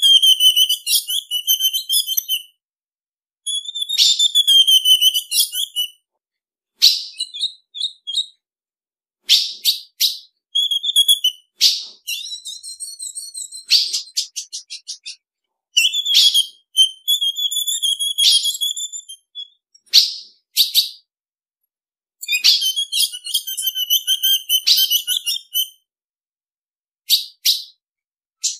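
Female ultramarine grosbeak (azulão) call played back: a series of short phrases of quick, high whistled notes, each one to four seconds long, separated by silent gaps.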